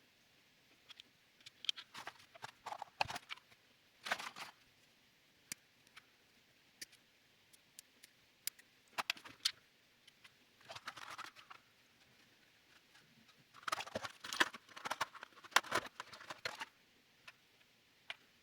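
Small plastic and metal parts of a Tamiya electric handy drill kit clicking and rattling as they are handled and fitted together by hand. The handling comes in three bursts of quick clicks, with single clicks between them.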